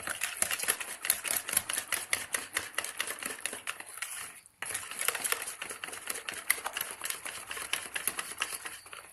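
A utensil stirring chocolate cake batter in a bowl, clicking rapidly against the bowl, with a brief pause about four and a half seconds in.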